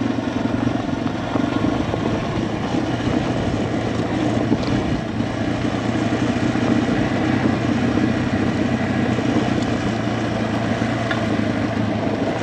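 Yamaha TW200 motorcycle's single-cylinder engine running at a steady pitch.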